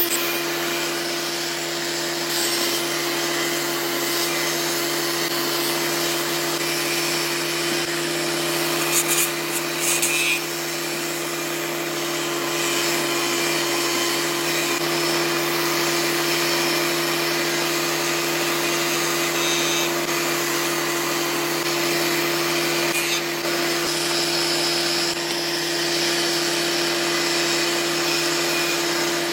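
Electric power tool motor running steadily with a constant hum, in woodworking; brief louder noise about nine and ten seconds in.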